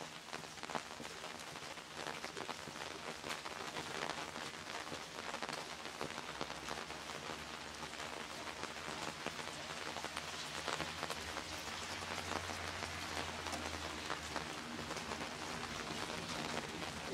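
Rain falling on wet pavement: a steady hiss with many small drop ticks. A low hum comes in for several seconds in the middle.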